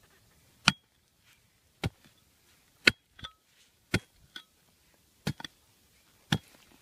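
A metal digging tool chopping into hard ground to dig out a detector target: six sharp strikes about a second apart, with smaller clicks of dirt and stones between them.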